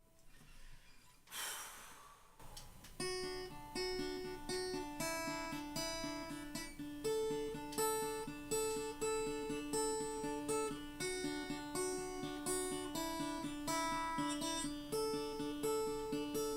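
Solo acoustic guitar intro: a steady, evenly repeating picked pattern over a held low note, starting about three seconds in after a brief soft rustle.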